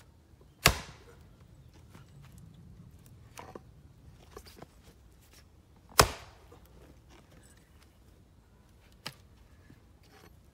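Two heavy axe blows into a round of black locust firewood, each a sharp crack with a brief ringing tail, the first about a second in and the second about six seconds in. A lighter knock follows near the end. The axe bites into the round without splitting it.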